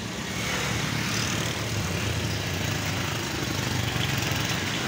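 A motor vehicle's engine running steadily amid street noise, a low hum that gets louder about half a second in and then holds.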